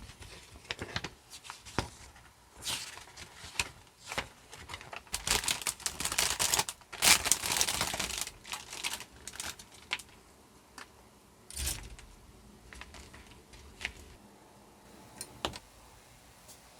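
Plastic model-kit packaging crinkling and rustling, with many sharp clicks and taps of hard plastic parts being handled; the crinkling is densest in the middle of the stretch.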